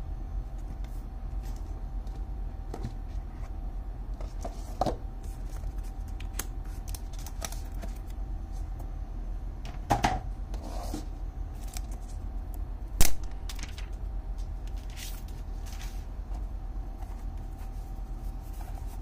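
Unboxing a keyboard: the box and its packaging handled and opened, with scattered taps and knocks, the loudest about 13 seconds in, and brief rustles, over a steady low hum.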